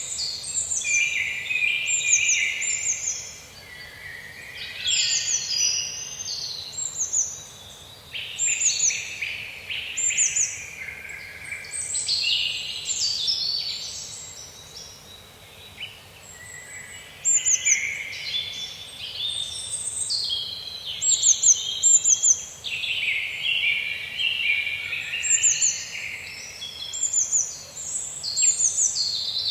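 Songbirds singing and calling in a forest, one phrase after another: quick high notes sweeping downward and chirping runs, with short lulls between the phrases.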